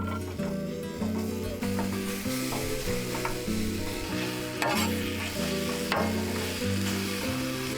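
Food sizzling as it fries in a pan, with a few sharp clicks of a utensil, over background music with a steady bass line.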